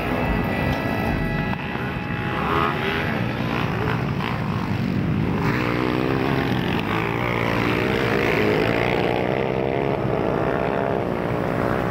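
Motocross dirt bike engines revving hard on the track, their pitch rising and falling as the riders work the throttle and shift gears, with more than one bike heard at once.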